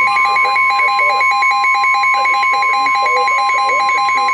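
NOAA Weather Radio's steady 1050 Hz warning alarm tone comes on at the start, signalling that a warning message is about to be read. Under it runs a weather radio receiver's own alert, a rapid pulsing beep about five times a second.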